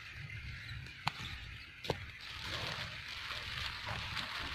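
Dry rice stalks rustling and crackling as they are handled during the harvest. Two sharp clicks come in the first two seconds, followed by a dense, crisp crackle.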